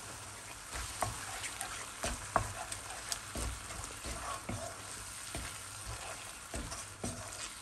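Food sizzling in a frying pan while being stirred, with a spatula scraping and knocking against the pan at irregular intervals over the steady hiss.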